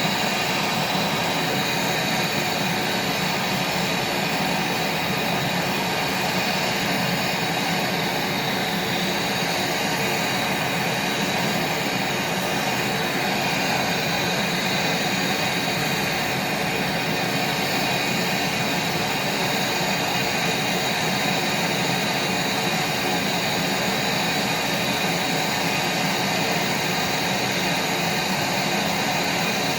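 Steady roar of a gas brazing torch flame heating a copper refrigerant pipe joint on a fridge's sealed system. It holds even throughout, with a faint hiss on top.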